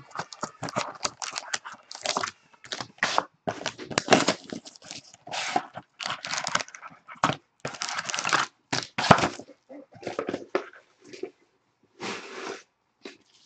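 Cardboard card box and its inner tray being pulled and torn apart by hand, with a plastic-wrapped pack handled: a run of irregular crackling, tearing and rustling noises with short gaps.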